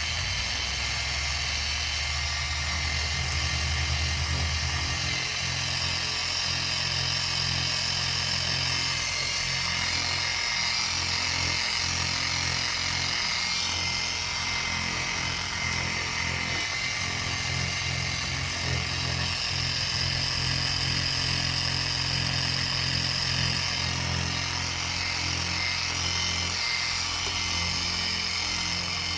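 Small handheld power sander running steadily with a 1200-grit disc, sanding the worn clear coat off a plastic headlight lens. Its low hum changes pitch a couple of times as it is pressed and moved.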